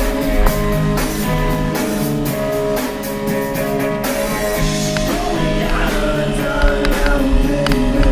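Rock music with guitar and drums, held notes over a steady drum beat.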